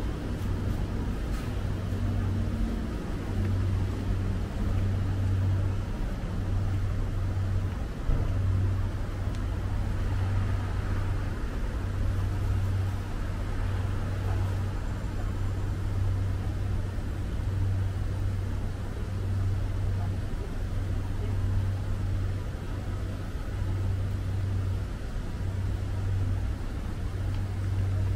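City street traffic: motor vehicles running with a steady low rumble.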